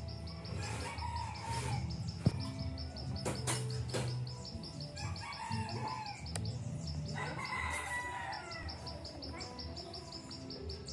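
A rooster crowing several times, about three calls, with a sharp knock about two seconds in and a few lighter knocks after it. A fast, even, high-pitched ticking runs alongside and pauses in the middle.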